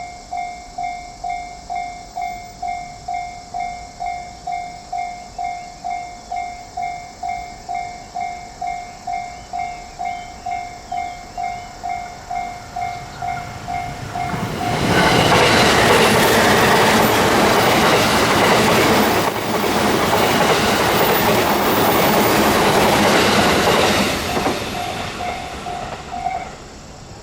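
Japanese level-crossing alarm ringing in an even two-tone pulse, about two strikes a second, while the crossing is closed for an oncoming train. About halfway through, an electric train passes at speed for about ten seconds and drowns out the bell. The bell is heard again briefly and cuts off shortly before the end, as the crossing clears.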